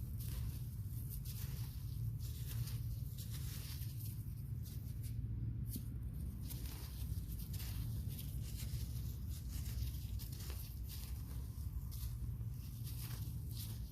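Irregular rustling and scraping of soil and potato plants being handled during digging, over a steady low rumble.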